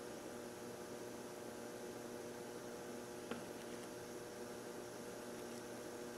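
Steady electrical hum, with a single faint click about three seconds in as a fuel pump part is handled.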